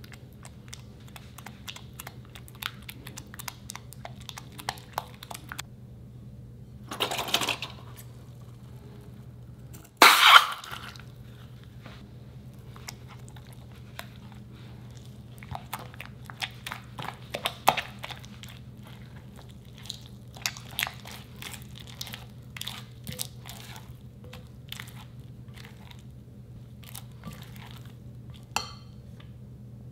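Silicone spatula stirring and scraping slime mixed with instant snow in a glass bowl, a steady run of wet crackly clicks and crunches. A louder rush of noise about ten seconds in, and a shorter one about seven seconds in.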